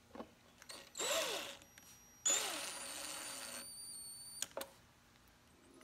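DeWalt cordless driver running in two short bursts, about half a second and then just over a second long, its motor speeding up and slowing down with each trigger pull as it drives screws into the steel cover plate of a landscape lighting transformer. A couple of sharp clicks follow near the end.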